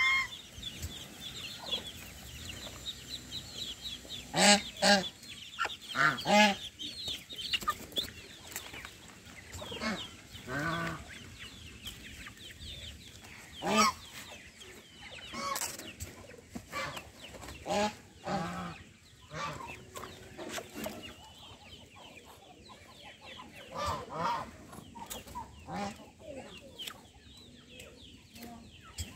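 Chickens clucking in a farmyard flock, with several louder calls scattered through. There is thin, high peeping from young birds in the first few seconds.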